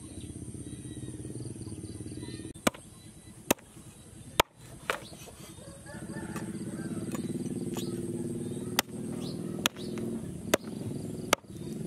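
Heavy cleaver chopping through raw pork and bone on a thick wooden chopping block: sharp single strikes, a few in a group and then a steady run about a second apart, over a low steady hum.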